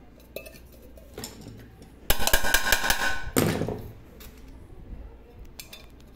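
Metal tools and pot parts being handled on a workbench. A few small clinks, then about a second of dense metallic rattling and clattering with a ringing tone, ending in a short scrape.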